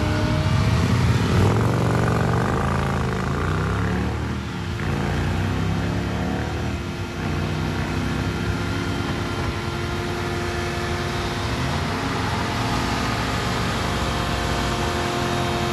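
Third-generation Chevrolet Camaro convertible doing a burnout: the engine is revved hard with the rear tyres spinning and smoking. The revs rise and fall over the first few seconds, then hold steady and high.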